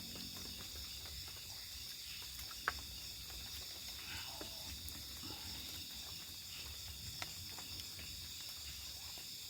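Steady night chorus of crickets and other insects, an unbroken high trill, with a few light clicks and one sharp click about two and a half seconds in.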